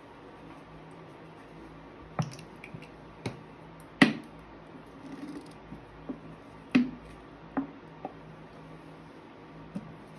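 Hands handling plastic containers and bottles on a tabletop: about eight irregular sharp clicks and knocks, the loudest about four seconds in, with a brief soft rustle just after it.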